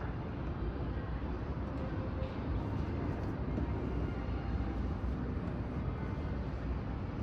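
Steady low rumble of airport ambient noise, with no single event standing out.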